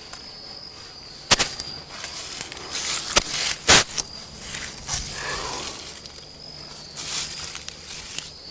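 Wooden coop base frame of 2x6 lumber knocking and thudding several times as it is tipped over and set down on its legs, the loudest knock a little before halfway through. A steady high insect trill runs behind it.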